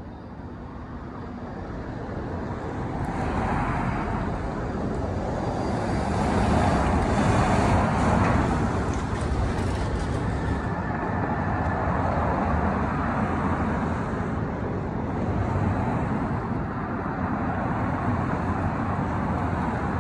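Road traffic noise: a continuous rush and rumble of cars, swelling to its loudest about seven or eight seconds in and then holding fairly steady.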